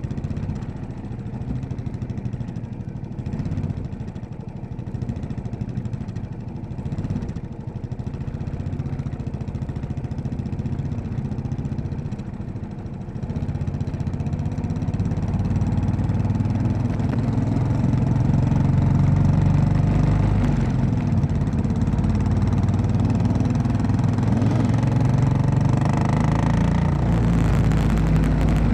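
Royal Enfield Classic 500's single-cylinder four-stroke engine running under way, getting louder and stronger about halfway through as it pulls harder.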